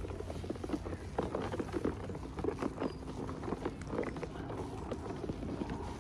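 Hands handling small plastic toys and packaging, making irregular soft taps and clicks.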